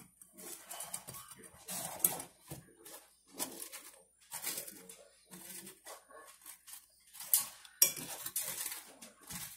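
Metal fork mashing soaked burnt bread in a small metal saucepan, with irregular clinks and scrapes of the tines against the pan's bottom and sides.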